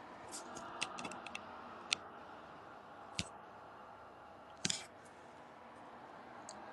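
A few faint, sharp clicks and taps over low room noise, with a short cluster of clicks about two-thirds of the way through.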